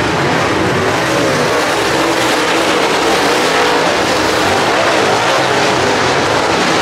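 A field of dirt late model race cars running at speed on a dirt oval. Several V8 engines blend together, rising and falling in pitch as the cars go through the turns and down the straights.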